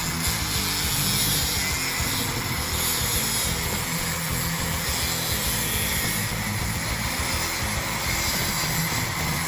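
Angle grinder with a masonry disc cutting through a concrete patio stone: a steady, unbroken grinding that holds an even level throughout.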